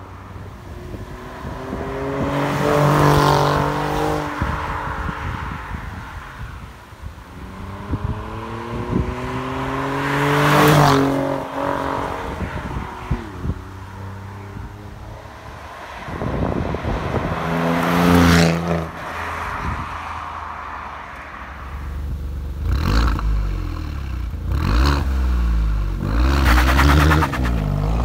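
Alfa Romeo Giulia QV's 2.9-litre twin-turbo V6 exhaust as the car drives on the road, swelling loud about three times with the engine note sweeping up and down. It settles into a deep low rumble in the last few seconds as the car pulls away.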